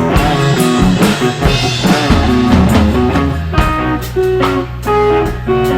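Rock band playing an instrumental passage: guitar notes over bass and a drum kit, with no singing.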